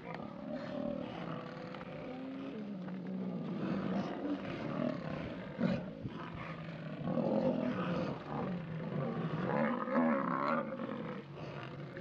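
Lions calling again and again, a string of loud, pitch-bending calls one after another while lionesses face down Cape buffalo.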